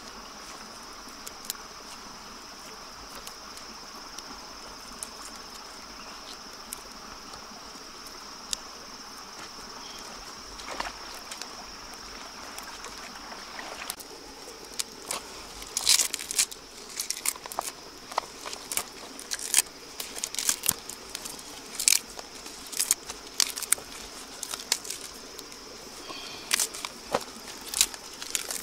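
A steady high insect drone throughout. From about halfway on come many short crackles and clicks from hands handling banana leaves and fresh herbs while stuffing a split fish.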